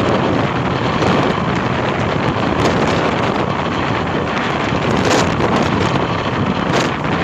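Strong wind buffeting the camera microphone on a moving motor scooter: a loud, steady rush of noise with a few short gusts flaring up.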